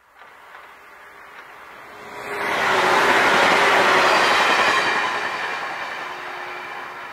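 A 475 series electric multiple unit passing at speed. Its running noise grows quickly about two seconds in, is loudest for a couple of seconds, then fades as the train draws away.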